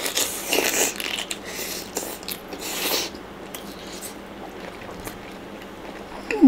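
Close-miked biting and chewing of a mouthful of blanched shrimp: wet, crunchy mouth sounds, loudest over the first three seconds and then softer.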